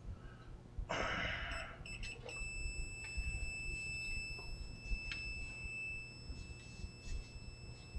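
Multimeter continuity beeper giving a few short chirps, then a steady high beep, as the probes bridge the tuning capacitor's rotor and stator. The beep means a short between the capacitor's plates. There is a brief rustle about a second in.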